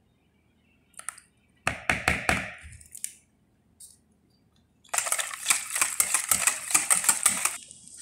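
Metal kitchen utensils, a spoon and a wire whisk, clinking against a plastic mixing bowl. There are a few clinks about two seconds in. From about five seconds in comes a quick, even run of clicks, about five a second, lasting some two and a half seconds.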